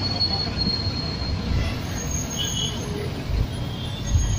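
Moving bus heard from inside the cabin: steady engine and road rumble, with passing traffic.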